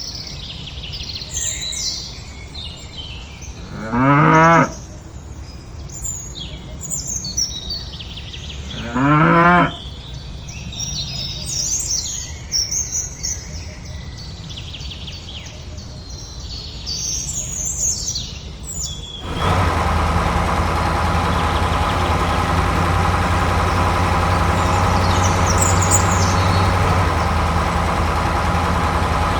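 Birds chirping, with two cow moos about four and nine seconds in. At about nineteen seconds a steady tractor engine sound cuts in abruptly and runs on at idle.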